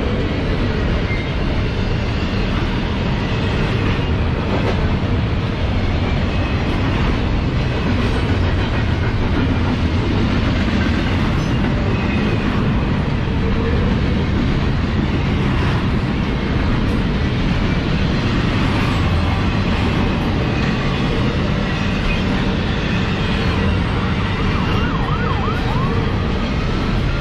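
Cars of a double-stack intermodal freight train rolling past at speed: a loud, steady rumble of steel wheels on rail.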